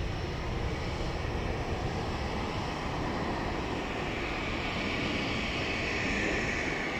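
Airbus A340-300's four CFM56 turbofans at takeoff thrust: a steady jet roar as the airliner runs down the runway and rotates, with a high jet whine growing louder over the last couple of seconds.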